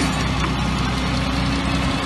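Tractor engine running steadily while it drives a hydraulic firewood splitter, with a steady low hum and a brief knock right at the start.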